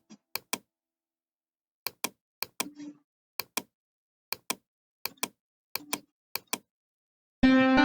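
Sharp plastic clicks in quick press-and-release pairs, about nine pairs at uneven intervals, from a mouse or keyboard controls being worked while the music software is set up. Near the end, a loud sustained note from a software instrument starts.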